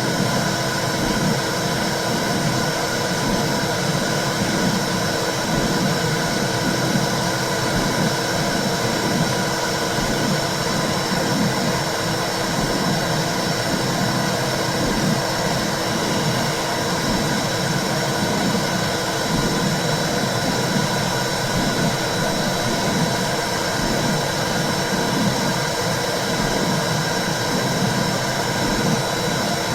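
Womb sound for calming babies: a steady whooshing noise with a low, soft pulse about once a second, like a heartbeat and blood flow heard from inside the uterus.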